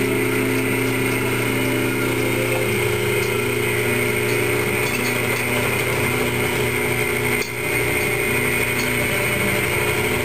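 Vertical milling machine running and cutting metal as the table is fed by hand, a steady hum with a high whine throughout. The whine dips briefly about three quarters of the way through.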